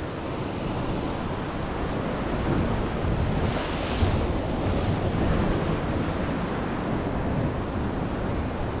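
Ocean swell surging and breaking against a rocky sea cliff, with wind buffeting the microphone as a low rumble. About four seconds in, a wave crashes into the rock with a louder hiss of spray.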